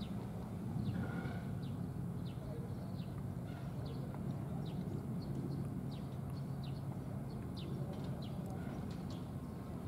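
A steady low engine hum, with short, high chirps from a small bird repeating about twice a second over it.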